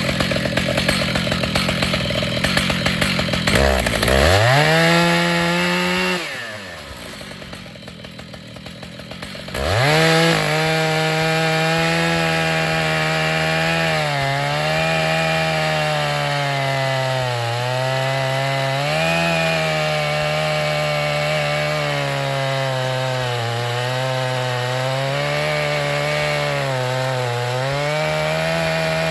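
Stihl MS 881 two-stroke chainsaw mounted in a chainsaw mill, revved up about four seconds in, dropping away for a few seconds, then brought back to full throttle at about ten seconds. It then cuts steadily through a white oak stump, its pitch sagging and recovering every few seconds as the chain loads up in the wood.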